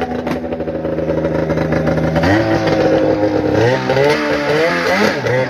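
Modified 1997 Arctic Cat 440 snowmobile's two-stroke twin engine, fitted with race carbs, pistons and heads, running at a steady idle. About two seconds in it steps up in pitch, then rises and falls repeatedly as the throttle is blipped.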